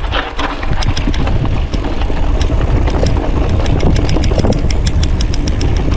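Bicycle rolling fast down a sandy dirt trail: wind rumbling on the action camera's microphone, with many quick irregular ticks and rattles from the bike over the bumps.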